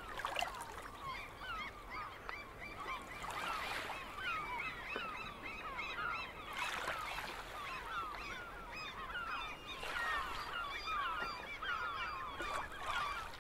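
A large flock of birds calling over one another, a dense chorus of many short rising-and-falling calls that swells and eases every few seconds.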